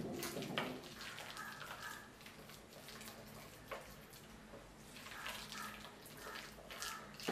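Boiled tapioca being mashed with a wooden spatula in a steel pot: quiet scraping and squashing with a few light knocks.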